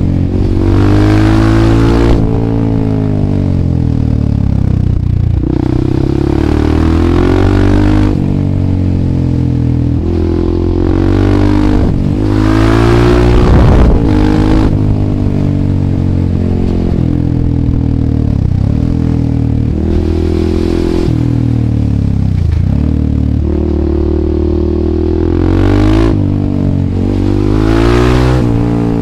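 Husqvarna 630 supermoto's single-cylinder four-stroke engine, loud through an FF By Fresco slip-on exhaust with the dB killer removed, under way on the road. The revs climb and drop back over and over as the rider opens and closes the throttle.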